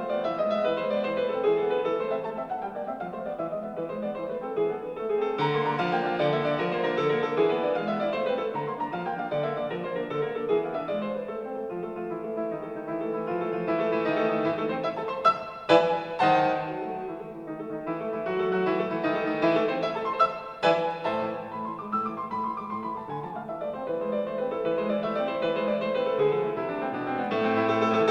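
Piano music played back through a 1960s National classroom speaker, a 16 cm alnico EAS-16P full-range unit in a Zenhōren No. 1 cabinet, with little deep bass.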